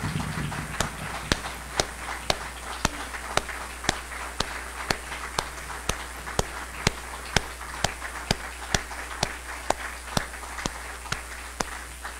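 A roomful of people applauding, with one person's claps close to the podium microphone standing out sharply at about two a second.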